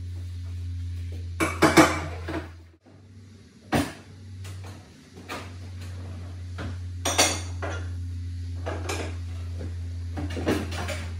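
Dishes and cutlery clattering as they are handled and put away: a handful of sharp clinks and knocks, spread irregularly, over a steady low hum.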